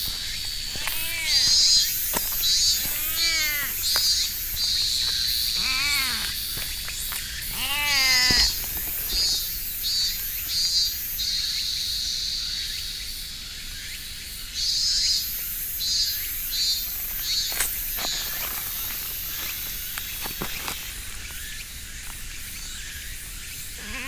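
A stray tortoiseshell-tabby cat meows four times in the first eight seconds or so, each meow rising and then falling in pitch. Throughout, a steady high chorus of insects buzzes in repeated pulses.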